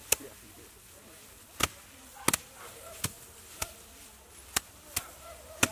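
Hand threshing: bundles of harvested grain stalks beaten down hard, one after another by several people, giving about nine sharp thwacks at irregular intervals, two of them almost together a little after two seconds in.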